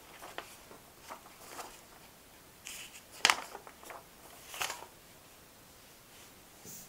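Paper rustling as a book's pages and loose sheets are handled and turned, in short scattered rustles with one sharper crack about three seconds in.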